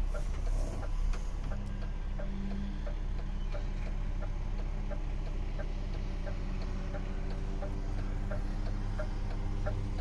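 DAF XF 530's PACCAR MX-13 six-cylinder diesel idling, heard inside the cab as a steady low hum, with a regular ticking about three times a second.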